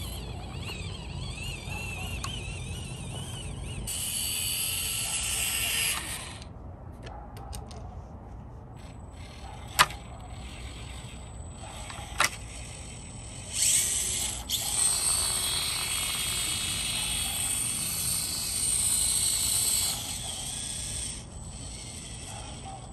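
Axial SCX24 micro RC crawler's small electric motor and gearbox whining in spurts as it drives, the pitch wavering with throttle. There are two sharp clicks, about ten and twelve seconds in.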